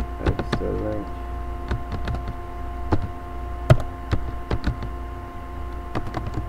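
Computer keyboard keys clicking at an irregular pace as a word is typed, with one sharper click about four seconds in. A steady electrical hum with two faint steady tones runs underneath.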